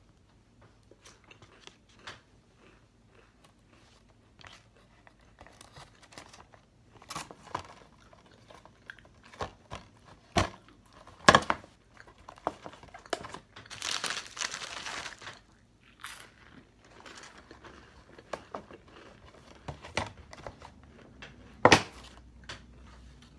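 Scissors cutting paper: scattered sharp snips and paper rustling, with a longer rustle about fourteen seconds in.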